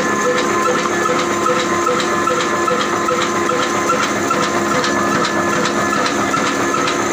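Mughal Sunrise 'black' diesel oil engine, rated 18/20 HP at 300 rpm, running steadily: a continuous mechanical hiss and clatter with a regular click about three times a second.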